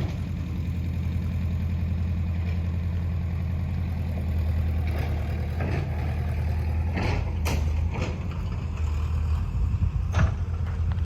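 Road roller's engine idling steadily with a low hum. A few sharp clicks and knocks sound over it in the second half.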